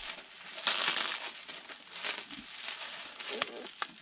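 Plastic bubble wrap crinkling and rustling as it is handled and pulled open around a model airplane wing, with a few sharp crackles near the end.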